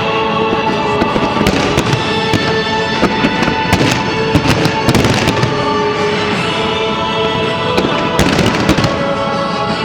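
Fireworks bursting in quick, irregular succession, many sharp bangs and crackles over loud music with long held notes.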